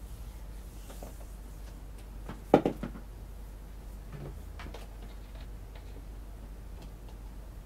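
Cardboard flashcards being swapped by hand in a plastic display frame: a sharp clack with a quick rattle about two and a half seconds in as the card comes out, then light taps and scrapes as the next card slides in, over a steady low electrical hum.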